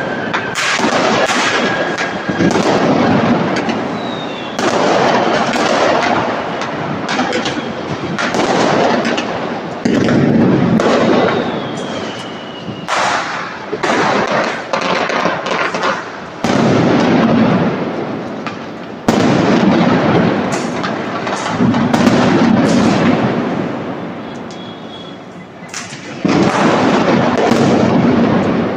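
Aerial fireworks bursting again and again, a loud boom every two or three seconds with a long rumbling tail, and sharp crackles in between. A couple of faint falling whistles can be heard.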